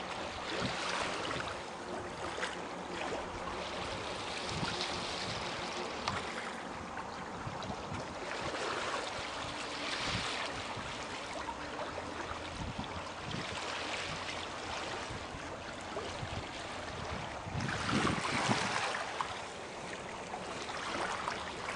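Water rushing and splashing along the hull of a small sailboat under way, swelling in surges every few seconds, the loudest near the end.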